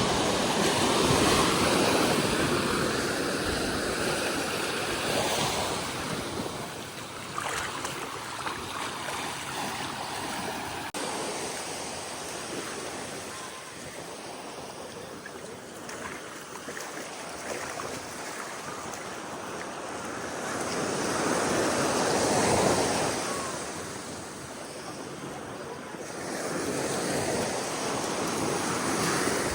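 Ocean surf washing onto the beach, rising and falling as waves break, loudest about a second in and again about two-thirds of the way through.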